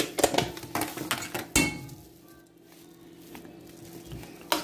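Metal spoon knocking and scraping against a pot while stirring butter and cream into mashed potatoes. There are several clinks in the first two seconds, a quieter stretch, then another knock near the end.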